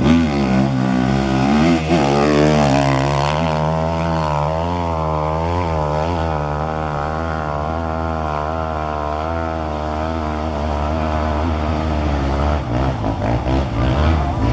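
Hill-climb motorcycle engine running hard under load, its pitch wavering up and down about once a second as the revs rise and fall.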